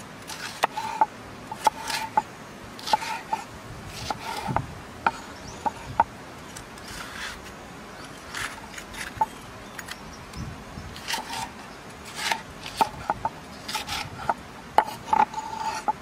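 Cleaver cutting a red bell pepper on a round wooden chopping board: irregular crisp slices and knocks of the blade on the board, several ringing briefly.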